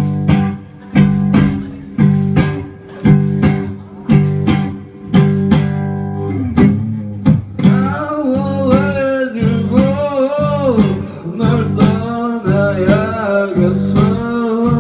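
Rock band playing live: electric guitars and bass over a drum kit, with sharp drum hits about once a second. A voice starts singing about eight seconds in.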